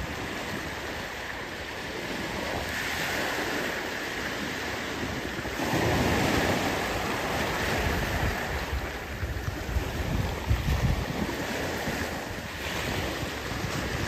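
Small sea waves breaking and washing up a shingle beach, swelling louder with a surge about six seconds in. Wind buffets the microphone with low gusty rumbles.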